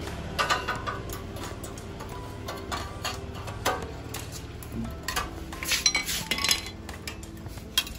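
A spanner clinking and clicking on the bolts and chrome pipe of a Royal Enfield Bullet 350's exhaust as the old silencer is unbolted. The metallic clinks come irregularly, several in quick succession in the second half.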